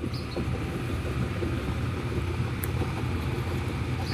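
Thai railway GE diesel-electric locomotive No. 4015 running with a steady low engine drone while shunting at low speed.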